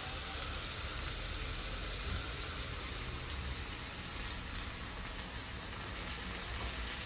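Chicken pieces sizzling steadily in a frying pan.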